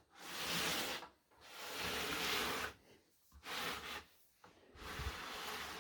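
LEGO model on baseplates being turned and slid across a table: rubbing, scraping noise in four stretches of about a second each, with short pauses between them.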